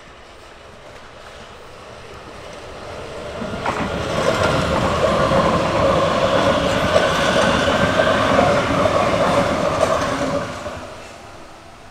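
Hamburg S-Bahn class 474 electric multiple unit passing on a curve: the rumble of wheels on rail swells as it approaches, stays loud for about six seconds with a steady tone over the rumble, then falls away quickly as the last car goes by.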